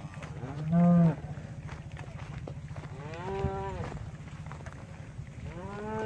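Cattle mooing as a herd is driven past: three long calls, a few seconds apart, each rising and then falling in pitch.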